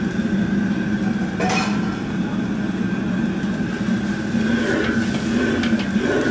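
Commercial gas wok burner running at high flame with a steady rush, with one sharp metal clink of the ladle against the wok about a second and a half in.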